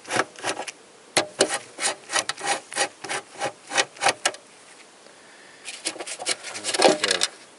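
Ratchet wrench clicking in a quick even run, several clicks a second, as a 10 mm bolt on the wiper linkage is unscrewed. It stops about four seconds in, and near the end comes a short burst of clicking and scraping as the loosened bolts are handled.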